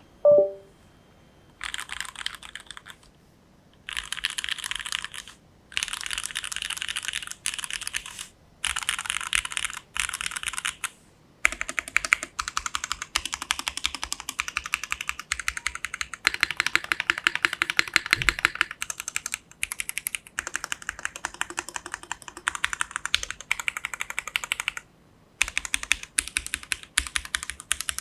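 Typing on a Void 65 custom mechanical keyboard with linear Cherry MX HG Black switches (50 g springs) on a carbon-fibre top-mount plate, under GMK keycaps: rapid keystrokes in bursts with short pauses, then a longer unbroken run through the middle. Right at the start there is one brief, loud knock with a short ringing tone.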